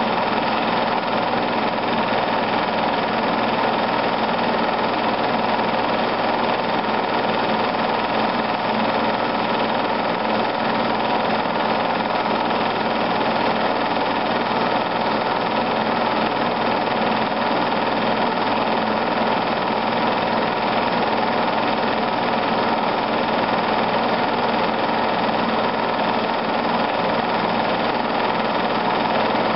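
Film projector running: a steady mechanical whirr and hum that holds unchanged throughout.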